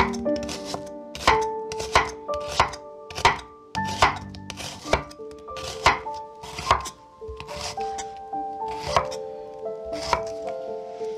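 Kitchen knife chopping food on a cutting board: sharp, irregular strokes about two a second, stopping about a second before the end. Soft background music with held notes plays underneath.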